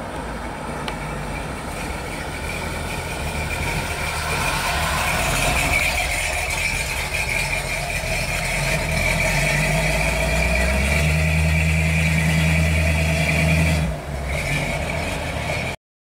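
The 1956 Ford F-100's rebuilt 351 Windsor V8 running. About eleven seconds in it settles into a steady idle, and the sound cuts off abruptly just before the end.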